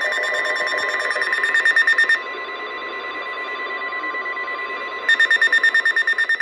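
NOAA Weather Radio warning alert: a steady high alarm tone, overlaid by a fast beeping alarm that stops about two seconds in and returns near the end, as the steady tone stops. It signals that a warning, here a severe thunderstorm warning, is about to be read.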